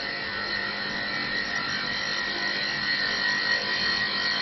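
Mini CNC wood-turning lathe cutting a piece of wood: a steady machine whine with the scraping of the tool against the spinning workpiece.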